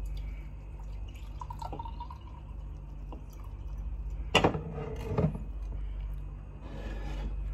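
Liquid sounds in a glass of home-fermented brew, with a sharp knock that rings briefly about four and a half seconds in and a second one about a second later, over a steady low hum.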